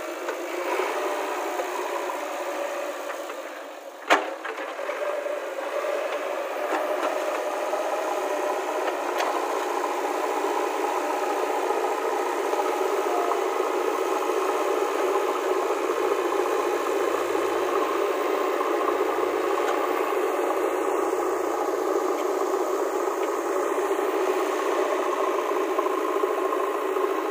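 JCB 3DX backhoe loader's diesel engine running steadily under load as its front loader bucket pushes soil. There is a single sharp knock about four seconds in.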